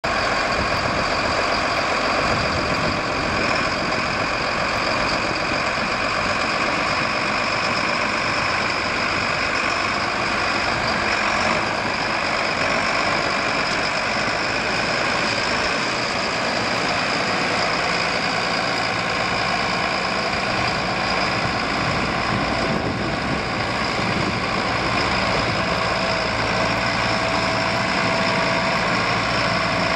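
Case MX250 Magnum tractor's six-cylinder diesel engine running steadily at idle.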